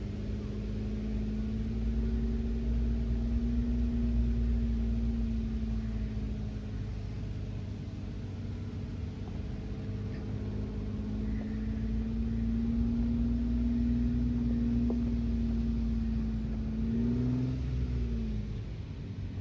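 Four-wheel-drive vehicle engine running steadily on a trail climb, a low drone that swells slightly a couple of times, then rises and falls away near the end.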